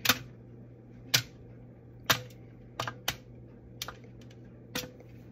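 Frozen crinkle-cut fries set down one at a time on a foil-covered baking pan: about half a dozen sharp clicks at irregular intervals, roughly a second apart.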